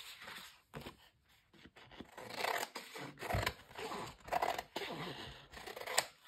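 Scissors cutting through thick textured, card-backed paper: a run of snips with the paper rustling as it is turned, and a sharp snip near the end.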